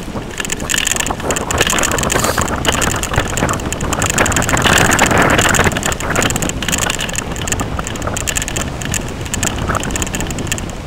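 Wind buffeting the microphone of a camera moving along a rough, patched road, mixed with the rumble and rattle of tyres on the broken asphalt. The noise swells for a couple of seconds around the middle.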